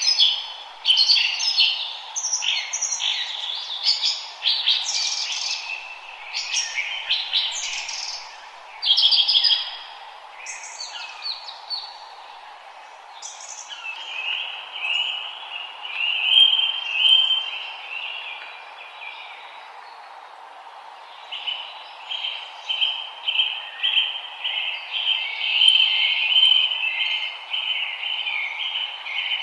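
Several forest songbirds singing, with overlapping chirped phrases for the first ten seconds or so, then fast repeated trills from about halfway in. A faint steady hiss runs underneath.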